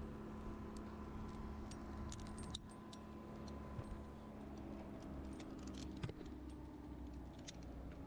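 Metal climbing hardware, such as carabiners and rigging gear, clinking in scattered light jingles over a steady low hum.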